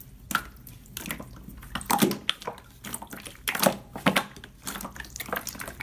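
Clear slime being stretched and squeezed by hand, making irregular wet clicks and pops.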